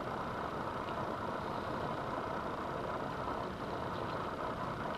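Steady background hum with no change, and a couple of faint small clicks over it.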